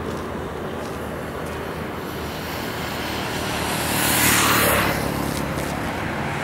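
Steady engine hum and road noise from a moving vehicle. About four seconds in, a motorcycle passes close by, swelling to the loudest sound and then fading back into the road noise.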